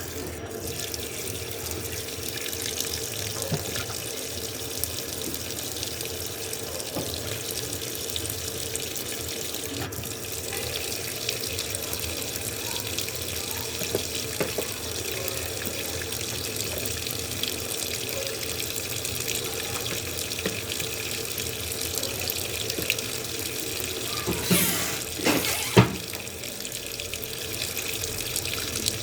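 Washing machine taking in water: a steady rush of running water. Near the end come a few louder splashes and one sharp knock.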